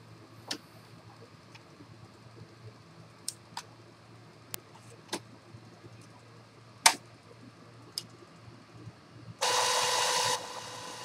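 Epson XP-series inkjet printer's mechanism at work: scattered clicks and ticks, the sharpest near seven seconds, then a motor whirs loudly with a steady tone for about a second before dropping to a quieter whir.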